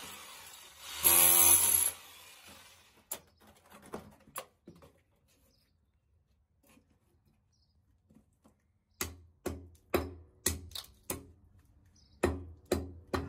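An electric rotary hammer with a chisel bit runs in a short burst against a concrete block wall about a second in. Later a hand hammer strikes the block around the cut-out, a run of sharp blows about two a second, then three more near the end.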